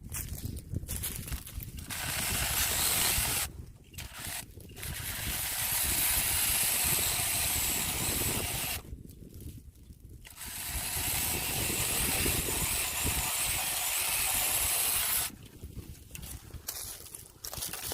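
Cordless mini chainsaw on an 18 V Makita battery, running in three bursts while cutting branches: a short one of about a second and a half, then two longer runs of about four and five seconds. Quieter rustling and handling noise fills the gaps between them.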